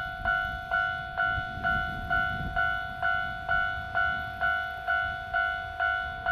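Railway level-crossing alarm ringing a single bell-like tone evenly, about twice a second, over the low rumble of a DE10 diesel-hydraulic locomotive approaching with its train.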